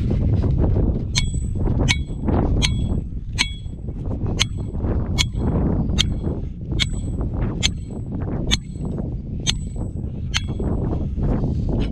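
Hammer driving a metal trap stake into the ground: about a dozen evenly spaced strikes, a little under one a second, each with a bright metallic ring.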